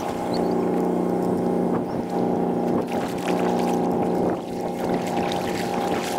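Kayak paddle strokes splashing in the water several times, over a steady low droning hum.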